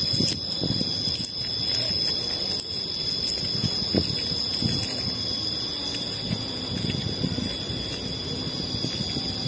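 Soft rustling and light knocks of hands working inside the nylon netting of a collapsible umbrella fish trap, over a steady high-pitched whine at several fixed pitches. One sharper knock comes about four seconds in.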